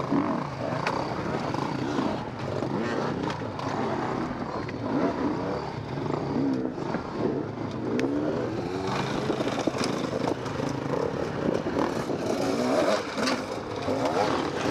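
Enduro motorcycle engines revving up and down unevenly as the bikes pick their way over a heap of broken concrete blocks, with scattered clicks and knocks.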